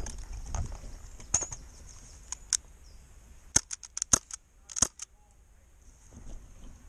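Airsoft rifle firing sharp, snappy shots: a couple of single shots, then a quick string of about eight in a second and a half.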